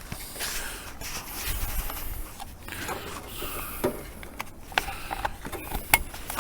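Screwdriver prying a plastic headlight switch out of its dash opening: scraping and rustling, with a few sharp plastic clicks as the retaining tabs are worked loose.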